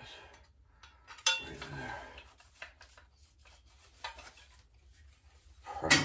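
Metal clinks from a screwdriver and a boiler's pilot burner assembly and tubing being handled: a sharp click about a second in, a few light taps, and a louder clatter near the end.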